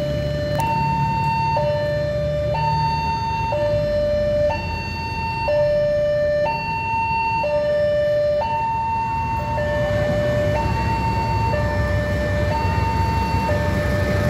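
Railway level-crossing warning alarm sounding its electronic two-tone signal, a high and a low tone alternating about once a second, which warns that a train is approaching while the barriers are down. A low steady rumble runs beneath it.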